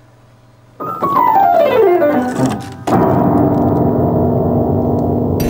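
Piano: a quick run of notes falling down the keyboard, then a loud low chord struck about three seconds in and held ringing.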